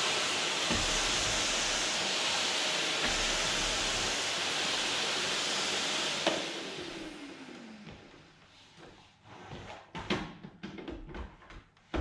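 Canister vacuum cleaner running steadily, then switched off with a click about six seconds in, its motor winding down in a falling whine. After that come a series of light knocks and clatters.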